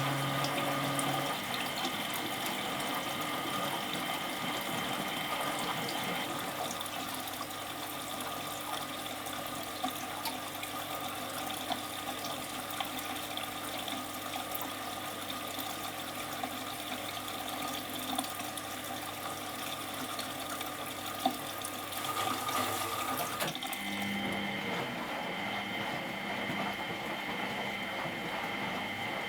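Water running into a 1993 Miele Professional WS 5426 washing machine, a steady rush with a faint hum; a low hum stops about a second in and the sound shifts about three-quarters of the way through.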